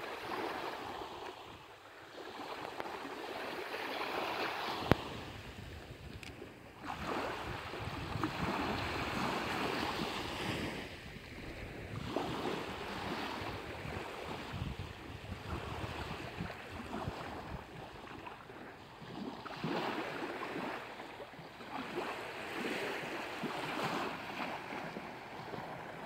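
Small sea waves lapping and washing onto a beach, the hiss swelling and fading every few seconds. A single sharp click about five seconds in.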